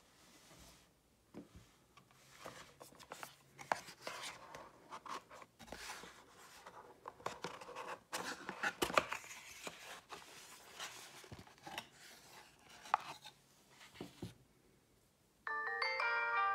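Cardboard box and packaging being handled: irregular rustling and scraping with sharp light knocks and clicks as the box is opened and emptied. Near the end, music with piano-like notes starts suddenly.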